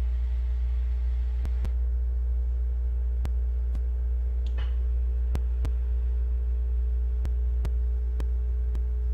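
Steady low electrical hum with a few fainter steady tones above it, broken by sharp, irregular clicks about every second.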